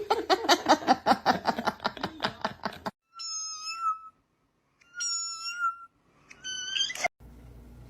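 Three high-pitched, drawn-out mews, typical of a kitten, in the second half, each about half a second to a second long with silent gaps between. Before them comes a rapid run of short pulsed sounds lasting about three seconds.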